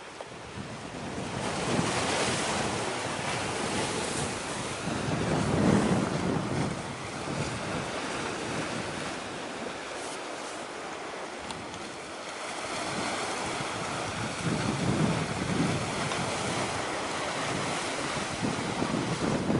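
Wind buffeting the microphone over the sound of sea waves: a steady rushing noise that swells and fades several times in gusts.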